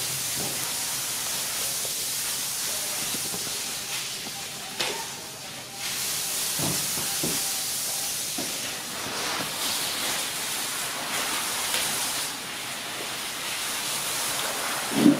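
Steady hiss, with a few soft knocks about five and seven seconds in.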